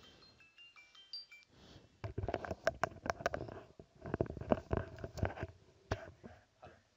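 A faint tinkling run of chime notes ends about a second in. Then, from about two seconds in, a dense run of clattering knocks and clicks lasts for about four seconds.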